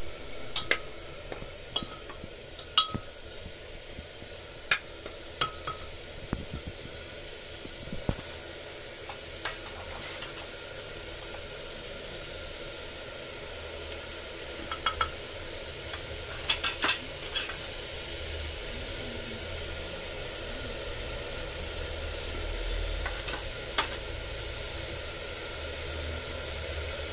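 Chopped onions sizzling steadily as they fry in oil in an aluminium pressure cooker. A steel slotted spoon stirs them, clinking sharply against the pot's side now and then, several times in quick succession about two-thirds of the way through.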